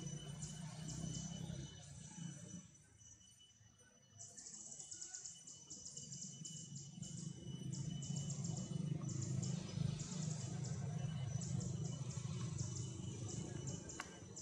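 Outdoor ambience: high, rapid chirping in short repeated trains over a low steady rumble, with the chirping pausing for a couple of seconds early on before resuming.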